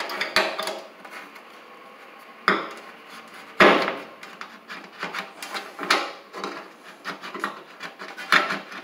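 Sink mounting clips being slid and clipped onto the rail under the sink's rim: light scraping and clicking, with a few sharper knocks, the loudest about three and a half seconds in.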